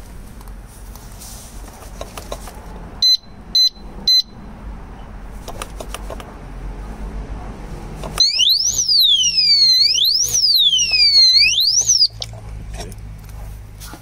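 Motorcycle alarm disc lock: three short high beeps in quick succession, then a few seconds later its loud siren sweeps up and down in pitch about three times and cuts off. The siren is the lock's movement alarm going off.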